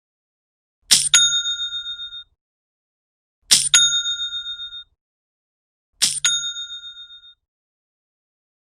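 Cha-ching cash-register sound effect, the Shopify sale notification, played three times about two and a half seconds apart. Each time there is a quick clack and then a bell ring that fades over about a second.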